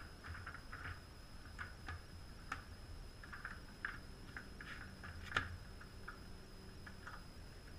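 Faint scattered clicks and light rustling of hands handling parts on a Puch moped's engine, with one sharper click about five seconds in. A steady low hum and a faint high whine run underneath.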